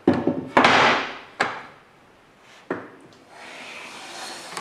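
A sycamore board is knocked and clattered on a wooden workbench as it is turned over and laid flat. About three seconds in, a hand plane is pushed along it in one long shaving stroke, on a surface wetted with alcohol to soften the wood for easier cutting.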